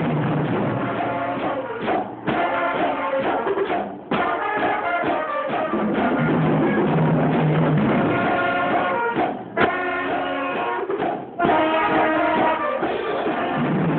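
A brass band with percussion playing a lively, rhythmic tune, recorded on a phone; the sound dips briefly a few times.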